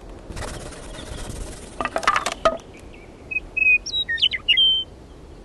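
Animated logo sound: a soft rushing swell, then a quick cluster of ringing knocks about two seconds in, followed by a bird's clear whistled song of sliding notes.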